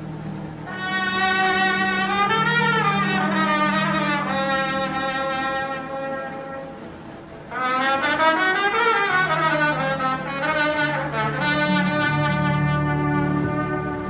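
Solo trumpet playing a slow, lyrical melody with vibrato over a military brass band's sustained accompaniment. It plays in two long phrases, the second coming in about halfway through after a softer moment.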